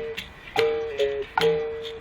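Live acoustic reggae-style music from a small band with acoustic guitar, berimbau and agogô. The passage is instrumental, with no singing: a repeating rhythm of sharp, ringing notes that step back and forth between two close pitches.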